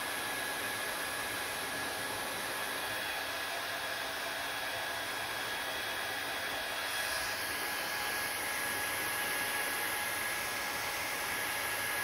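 Handheld hair dryer running steadily, blowing on wet hair: an even rushing with a faint high whine. The hiss gets a little brighter about seven seconds in.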